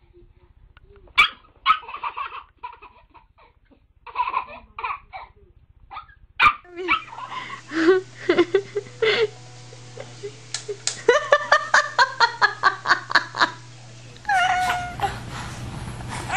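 Babies laughing across several short clips: scattered giggles, then a long run of quick belly-laugh pulses past the middle, and a higher squealing laugh near the end.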